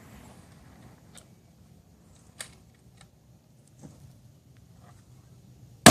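A few faint, scattered clicks over a quiet background, then a precision rifle shot goes off with a loud crack right at the end.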